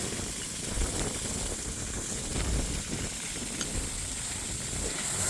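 Steady hiss of pressurised water at a freshly tightened pipe valve, with an uneven low rumble and a few faint ticks.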